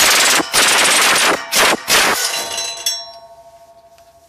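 Impact wrench hammering on the F-150's factory exhaust bolts with a 14 mm socket, breaking them loose in four short bursts over about two seconds. A fading ringing tone follows after the last burst.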